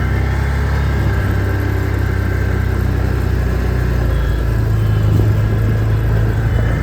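Vehicle engine running steadily at a low, even pitch while driving down a slope, heard from on board.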